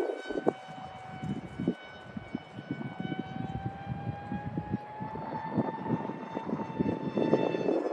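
E-flite F-27 Evolution RC plane's electric motor and propeller whining steadily, rising a little in pitch about three seconds in. Gusts of wind buffet the microphone underneath.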